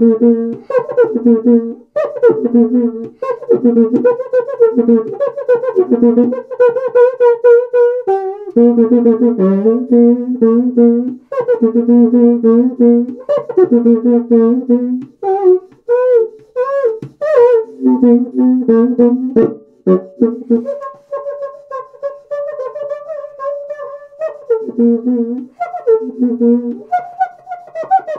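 Cuica, a Brazilian friction drum, played by rubbing a damp cloth along the stick fixed to the drumhead, with pressure on the head shifting the pitch. It plays a rhythmic pattern of squeaky low and high notes, with sliding pitch bends in the middle and a longer held higher note later on.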